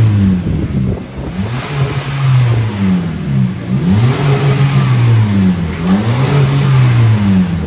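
Perodua Myvi engine revved up and down several times through a large-bore aftermarket exhaust. The note rises and falls with each blip of the throttle, giving some exhaust sound, though not much for a big exhaust.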